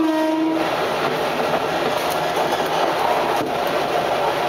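Adelaide Metro 3100-series diesel railcar running along the track, heard from inside the driving cab: a steady rumble and rail noise with a few sharp wheel clicks. A short pitched tone sounds right at the start.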